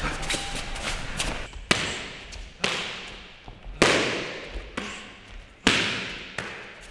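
Strikes landing on hand-held focus mitts during kickboxing pad work: a few light taps, then four hard smacks spaced about a second apart. Each smack rings on and fades in a large, echoing room, the loudest about four seconds in.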